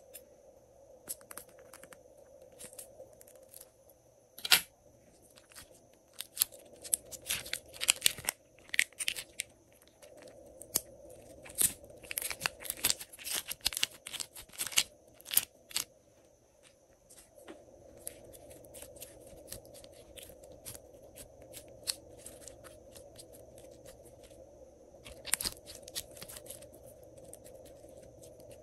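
Glitter slime being squeezed out of a plastic piping bag and handled: crinkling plastic and many small sticky clicks and crackles, busiest in the middle, with one sharp snap about four and a half seconds in, over a faint steady hum.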